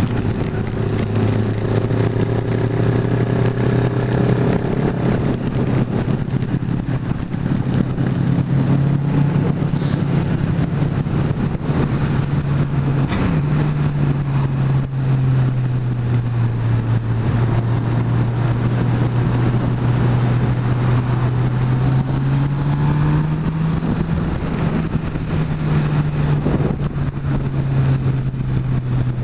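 Motorcycle engine running at cruising speed, heard from the rider's own bike with wind rushing past. The engine note holds steady, drops a little about 13 seconds in, rises again a little after 20 seconds and drops once more near the end.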